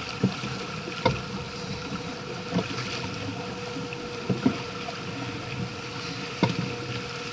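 Sailing yacht under way under sail: a steady rush of water along the hull and wind, with a faint steady hum and several short sharp knocks a second or two apart.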